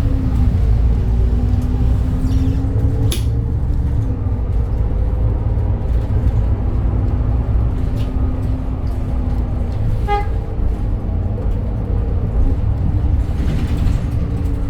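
Inside a 2021 Edison Motors Smart 110G city bus under way: its GX12P CNG engine and ZF Ecolife automatic driveline running, the engine note falling and rising a few times with speed and gear changes. A short beep sounds about ten seconds in.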